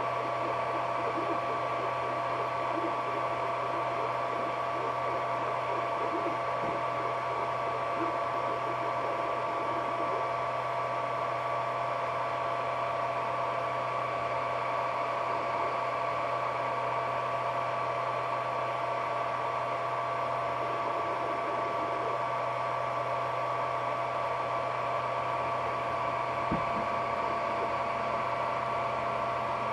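Ender 3D printer running mid-print: a steady whine of two fixed tones over a low hum and hiss, with a faint click late on.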